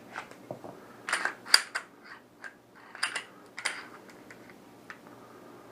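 Sharp metallic clicks and clacks of a semi-automatic pistol being handled, its slide pulled back and let go. They come in two clusters, about a second in and about three seconds in.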